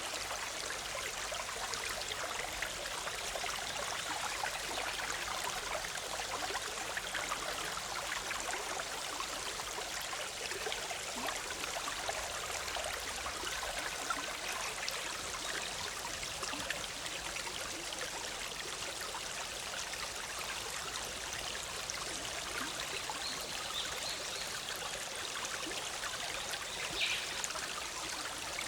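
A shallow forest stream bubbling and splashing steadily over rocks, with a short high bird chirp near the end.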